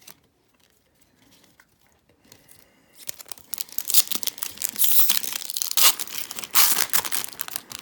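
A foil trading-card pack wrapper being torn open and crinkled, starting about three seconds in.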